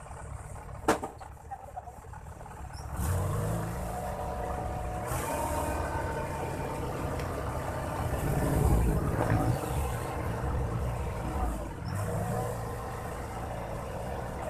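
Boom truck's engine running, picking up sharply about three seconds in and then running louder and steady, loudest around nine seconds in. A single sharp click comes about a second in.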